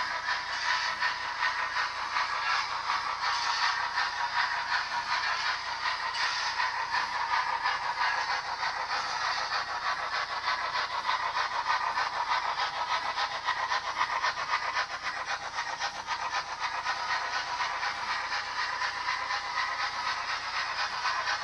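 OO gauge model of a Princess pacific steam locomotive running with DCC sound: the sound decoder's speaker plays fast steam chuffing and hiss over the rattle of the model's wheels on the track.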